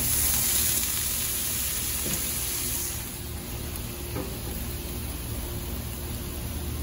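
Water poured onto a hot cast iron griddle hissing and sizzling as it flashes to steam. The hiss starts at once, stays strong for about three seconds, then dies down to a lower sizzle.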